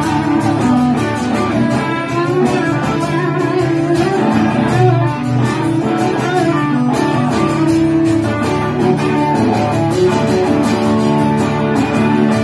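Live rock song played on two guitars: an acoustic guitar strumming chords under an electric guitar playing the lead line.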